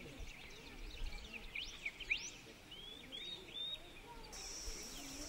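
Small birds chirping in open countryside: a few quick rising whistles about two seconds in, then a run of short arching chirps. A steady high-pitched buzz sets in suddenly near the end.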